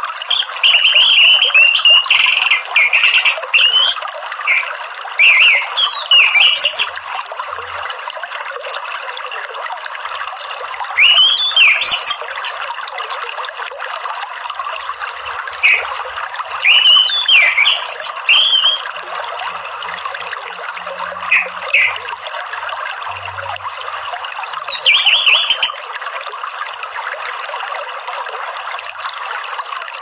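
Orange-headed thrush (anis merah) singing in separate bursts of quick, varied whistled phrases every few seconds, about six in all, over the steady sound of running water.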